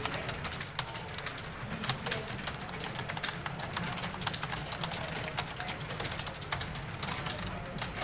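Many computer keyboards being typed on at once: a dense, irregular clatter of keystrokes from a room full of typists working at speed.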